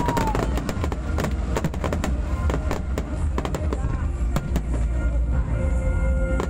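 Fireworks display: many aerial shells bursting in quick succession, a dense run of sharp bangs and crackles over a constant deep rumble, with a few brief whistling tones.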